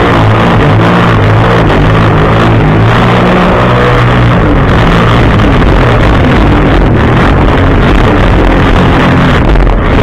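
2008 Sea-Doo GTI 155 personal watercraft's three-cylinder four-stroke engine running under way across choppy water, its steady note less distinct after about four seconds. Water rushing and spraying against the hull runs underneath throughout.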